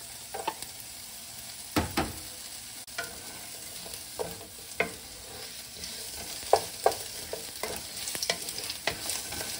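Chopped red onions sizzling in hot olive oil in a nonstick pan as a wooden spatula stirs them, with scattered sharp taps and scrapes of the spatula against the pan; the loudest knock comes about two seconds in.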